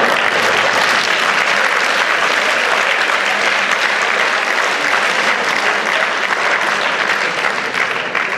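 Theatre audience applauding steadily: many hands clapping.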